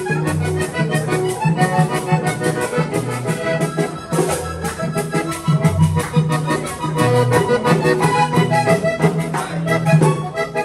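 Diatonic button accordion playing a lively vallenato tune, with held chords, low bass notes and a steady rhythmic beat.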